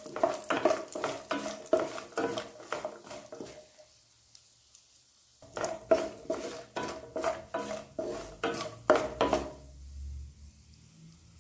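A spatula stirring and scraping cashews and whole spices frying in oil in a nonstick pan, in quick repeated strokes. There is a pause of about a second and a half around four seconds in, then the stirring resumes and stops near the end.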